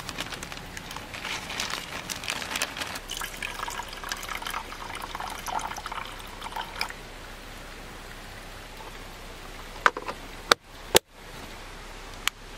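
Rinsed rice tipped from a plastic bag into the pot of a small electric rice cooker, then water poured in from a plastic bottle. A few sharp clicks follow near the end, the last as the switch on the cooker's power cord is pressed.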